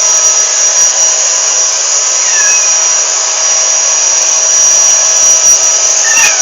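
Vacuum cleaner motor running steadily, a loud even rush with a steady high whine.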